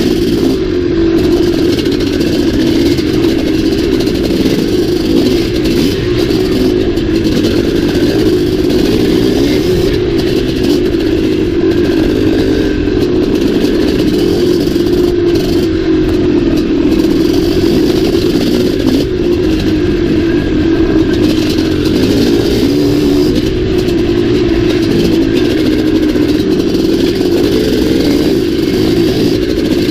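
Big-bore two-stroke single-cylinder Maico dirt bike engine pulling along a trail under fairly steady throttle, its pitch rising and falling only slightly.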